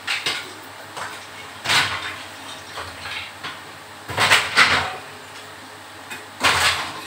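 Broken brick rubble being scraped up and thrown onto a pile: a clattering crash roughly every two seconds, the loudest a little past halfway.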